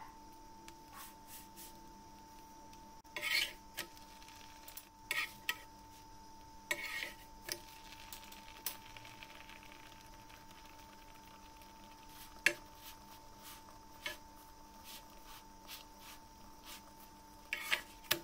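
A roti being handled on a hot, dry pan: a few soft scrapes and taps scattered through, and a quick cluster near the end as it is lifted and flipped, over a faint steady hum.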